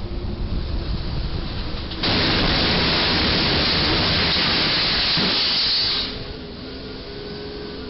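Rental box truck crashing into the low railway trestle, its roof torn off: a sudden loud rush of noise about two seconds in that holds for about four seconds, then drops back to street traffic sound.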